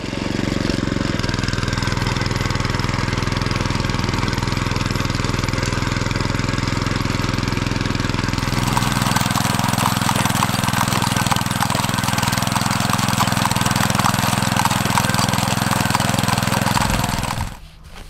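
Honda walk-behind tiller's small four-stroke engine running steadily under load, its tines churning through dry grass and soil. About halfway through the sound turns harsher and noisier, and it cuts off just before the end.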